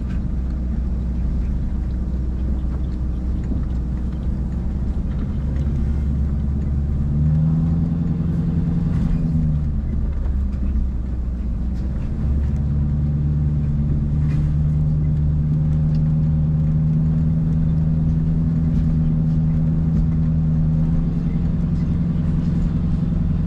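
Pickup truck engine running at low speed, its pitch rising about seven seconds in, dropping back near ten seconds, then rising again and holding steady until near the end.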